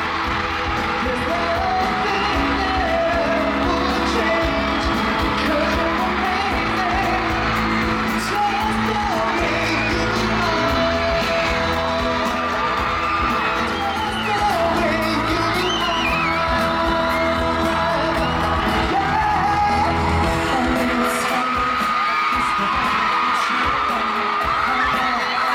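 Live pop music with singing, played loud through a concert sound system, while fans in the audience whoop and shriek over it.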